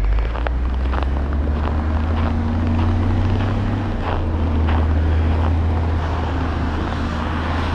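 Footsteps on packed snow along a cleared path, one every half second to second, over a steady low rumble, with a faint steady hum in the middle of it.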